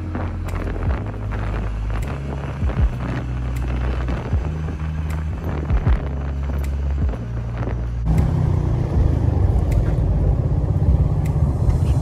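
Background music with a steady beat and deep bass notes, over the rumble of a motorcycle ride.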